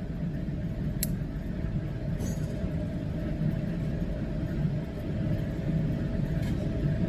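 Steady low background rumble with a faint constant hum, and a couple of light clicks about one and two seconds in; no gunshots.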